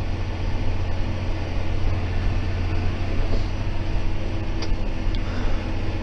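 John Deere 6190R tractor's six-cylinder diesel engine running steadily under ploughing load, heard from inside the cab as an even low drone.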